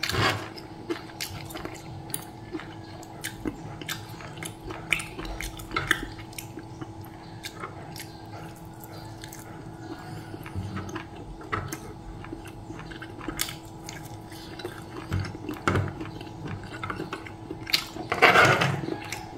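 Close-up eating sounds: chewing and biting fried chicken, with short clicks and scrapes of a metal spoon and fork against the tray, and a louder scrape about 18 seconds in. A faint steady hum runs underneath.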